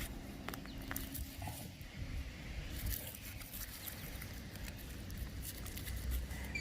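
Soft rustling and scattered small crackles of hands working in garden soil to pull up an onion.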